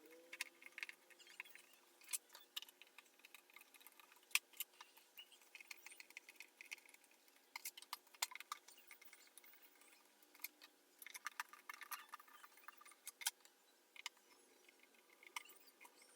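Faint, irregular clicks and light taps of small plastic and metal parts being handled while an Xbox Series S console is taken apart.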